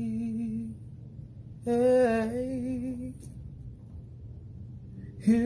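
A slow Christmas song: a singer holds the last note of a line until just under a second in, a second short melodic phrase with vibrato comes about two seconds in, and soft instrumental backing plays between.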